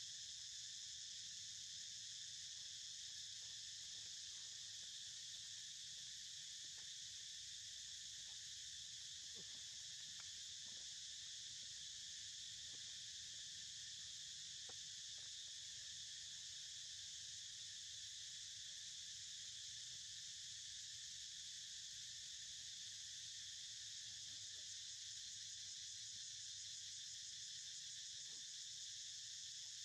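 Steady, high-pitched insect chorus that keeps up without a break.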